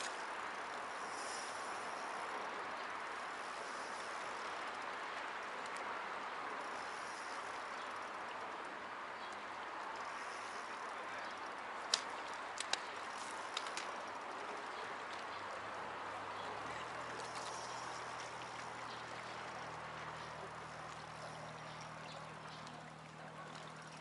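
Steady wash of small sea waves lapping against shoreline rocks, with a few sharp clicks about halfway through and a faint low engine hum coming in during the last third.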